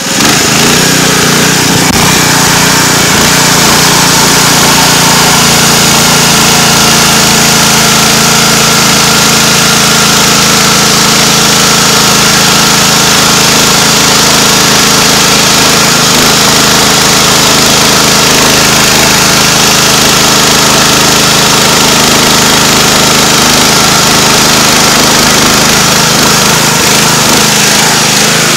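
Small OHV gas engine running steadily, belt-driving the new full-chisel chain of a homemade chainsaw mill as it rips through a poplar log.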